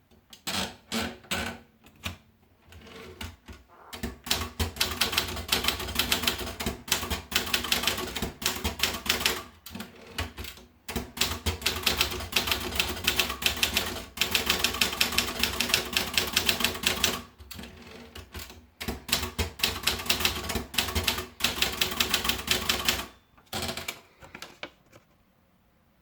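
Erika Daro manual typewriter being typed on: a few separate key strikes at first, then long fast runs of strikes broken by short pauses, and a last few strikes before it stops.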